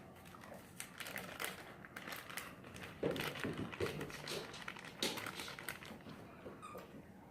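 Faint clicks, taps and crinkling of a spice container and measuring spoon being handled while cayenne pepper is measured out, with a couple of louder knocks around the middle.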